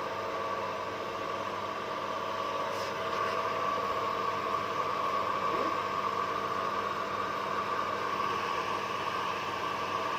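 Samsung direct-drive front-load washing machine spinning at full speed, a steady motor hum with a whine, getting slightly louder about four seconds in.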